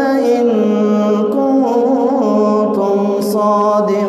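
A man reciting the Quran aloud in melodic tajweed chant, drawing out words in long held notes with a wavering ornament about two seconds in.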